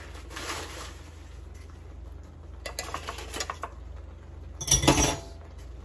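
A spoon scraping and knocking against a cast-iron skillet of instant mashed potato, in short scattered clatters, the loudest about five seconds in.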